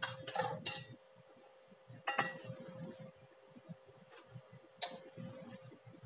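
Steel plate clinking against a stainless steel saucepan as pieces of dried date are tipped in: a sharp metallic clink with a short ring about two seconds in, and a fainter click near five seconds.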